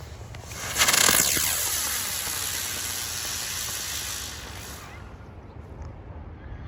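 Mad Ox smoke drone helicopter aerial spinner firing: a sudden loud hiss about a second in, with a whirring whine gliding down in pitch as it spins up and climbs away. It burns out about four seconds later.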